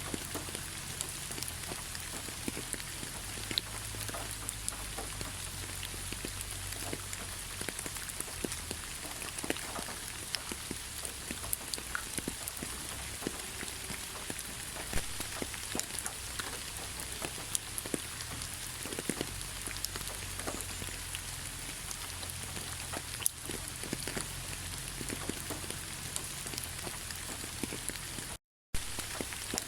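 Heavy rain falling steadily: a dense, even hiss full of individual drops ticking, over a low rumble. The sound cuts out completely for a split second near the end.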